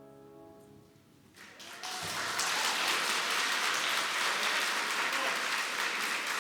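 A piano's final chord dies away, and about a second and a half in an audience breaks into applause that builds quickly and then goes on steadily.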